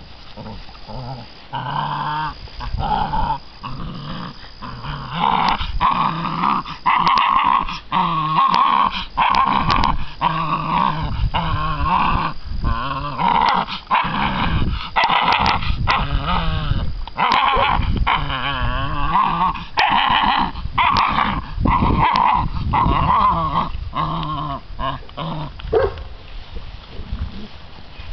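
Six-week-old American Bandog Mastiff puppies growling in a long run of repeated bursts as they tug against each other over a piece of chicken on a string. The growling tapers off near the end.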